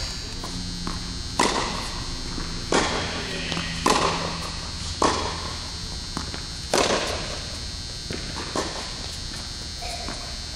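Tennis ball struck by a racket and bouncing on a hard court during a rally: sharp pops about every second or so, each echoing in a large indoor hall, over a steady low hum.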